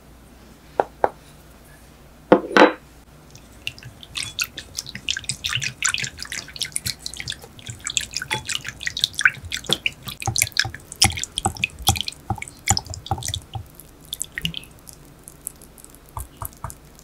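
A few light taps and a louder knock, then a wire whisk beating hot coffee in a glass bowl to dissolve powdered gelatin. The tines click rapidly against the glass and the liquid splashes for about eleven seconds, then it eases off near the end.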